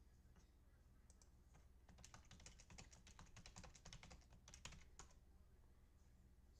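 Faint typing on a computer keyboard: a quick run of key clicks lasting about three seconds, starting about two seconds in.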